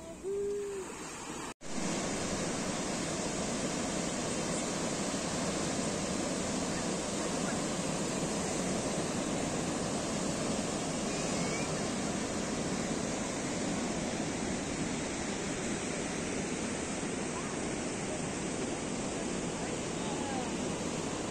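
Steady rush of sea surf washing onto the shore, mixed with wind on the microphone. A couple of short pitched calls sound in the first second, followed by a brief dropout.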